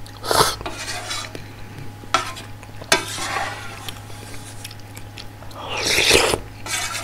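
Eating sounds: a slurp of ramen noodles just after the start, then a spoon clicking twice and scraping against a thin metal pot while scooping, and a longer, louder slurp of broth from the spoon around six seconds in.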